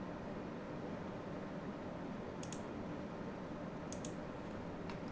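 Computer mouse clicking in quick pairs, three pairs about a second and a half apart, over a steady low room hum.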